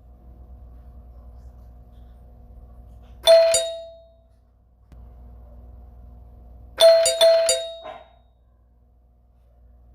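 Doorbell chime ringing: one ring about three seconds in that dies away, then a quick run of three or four rings about seven seconds in, over a faint steady hum.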